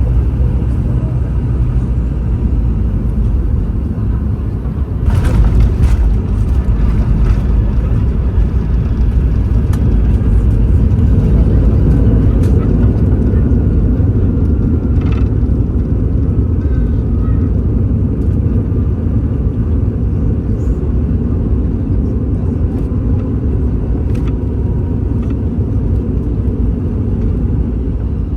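Boeing 717 landing as heard from inside the cabin: a steady deep rumble, then a sudden jolt and rattle about five seconds in as the wheels touch down. The rollout rumble follows, growing louder for several seconds and then easing slightly as the jet slows.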